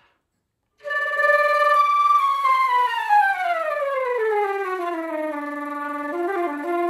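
Concert flute played with throat flutter-tonguing, the flutter rolled in the throat rather than with the tongue. Starting about a second in, it holds a high note, then slides smoothly down over about three seconds to a low note.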